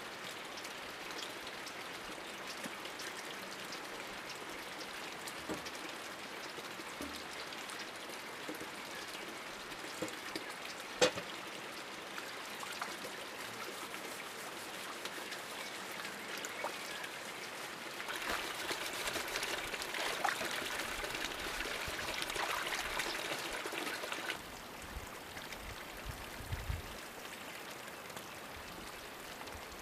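Water pouring steadily from a hose spout into a bucket standing in a brick basin, a continuous splashing trickle. There is a single sharp knock about a third of the way in, and louder splashing for several seconds past the middle as a glass panel is scrubbed under the stream.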